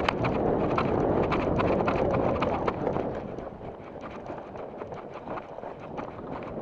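Footsteps of players running, irregular thuds with rustling and wind on the microphone. Louder for the first three seconds, then fainter.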